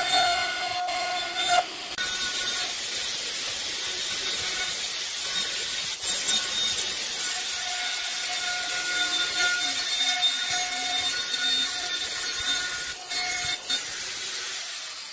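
Electric power tool working wood, a steady motor whine over a rasping hiss, as when cutting or sanding a log; it dies away at the end.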